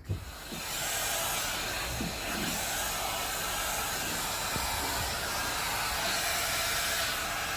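Vacuum cleaner (hoover) running with a steady airy rush, starting just after the start.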